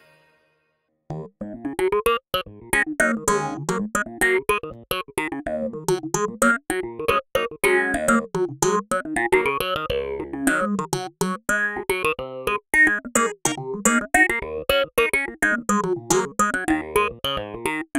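Roland Jupiter-X synthesizer played on its keyboard: a busy line of short, sharp-attacked notes that starts after about a second of silence.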